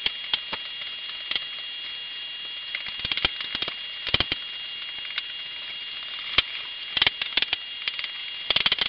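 Hands mixing a crumbly crust of flour, walnuts and butter in a glass bowl: irregular clicks and crackles, some in quick little clusters, as fingers and nuts knock against the glass.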